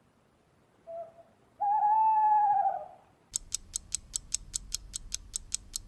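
Owl hooting: a short soft note, then one long wavering hoot that falls away at its end. From about halfway in, a fast, even ticking, about five ticks a second.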